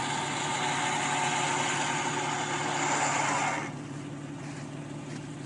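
4x4 off-road vehicle engine running hard during a tow recovery in snow. About three and a half seconds in, the sound drops sharply to quieter, steady running.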